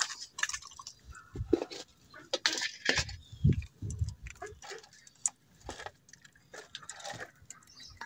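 Handling noises around a shallow metal water dish on gravelly ground: irregular clinks and knocks with a few dull thumps, as the dish is readied to be filled with water.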